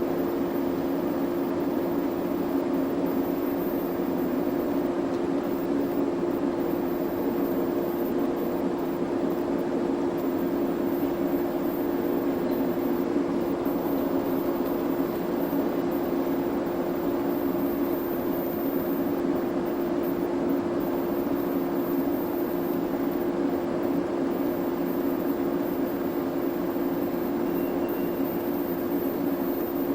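Steady machine drone with a strong low hum over a noisy hiss, unchanging throughout.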